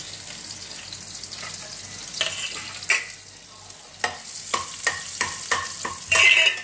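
Cumin and chopped green chilli sizzling in hot oil in a pan as a tadka, with a steady hiss. From about two seconds in, a run of sharp knocks as the pan is stirred, loudest near the end.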